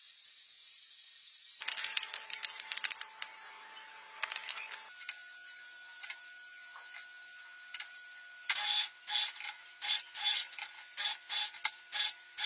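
A soft hiss, then from about a second and a half in, clusters of rubbing and scraping clicks over a faint steady whine. From about eight and a half seconds in comes a run of sharp scraping strokes, roughly two a second.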